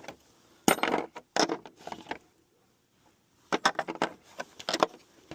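Metal hand tools clinking and rattling as they are handled. There are two clusters of sharp clinks, with a quiet second or so between them.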